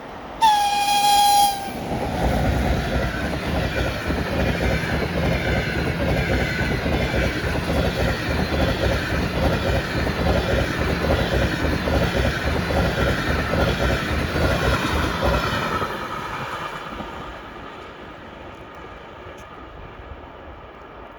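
EP20 electric locomotive sounds its horn in one short single-tone blast of about a second. Then the locomotive and its high-speed passenger train pass at speed, wheels clattering rhythmically for about fourteen seconds before the noise fades away.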